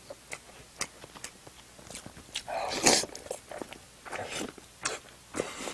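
Close-miked eating sounds: chewing stir-fried pork, with wet mouth noises and light clicks of chopsticks against the plate. The loudest is a noisy slurp or suck about three seconds in.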